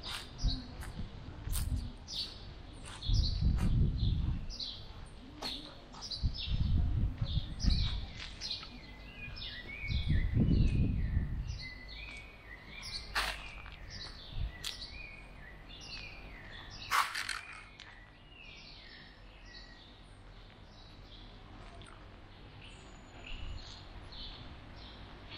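Small birds chirping and calling in the trees, with a run of quick stepped notes in the middle. Three low rumbles, about three, seven and ten seconds in, are the loudest sounds.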